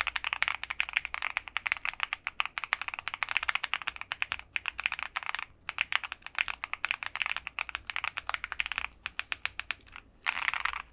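Fast typing on a Monsgeek M3 TKL mechanical keyboard with lubed Akko Crystal Silver linear switches, PE foam, tape mod and lubed stabilizers, giving a full sound rather than a hollow one: a dense, even run of keystrokes with two brief pauses, stopping about nine seconds in.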